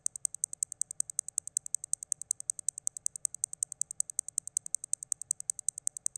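A rapid, even train of sharp, high-pitched electronic clicks, about eight a second, a pulse in a minimal electronic score.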